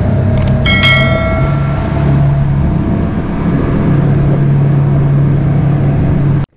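Boat under way at speed: steady engine drone mixed with wind and rushing water. Near the start, mouse clicks and a short ringing bell chime from an edited-in subscribe animation sit over it. The sound cuts off abruptly just before the end.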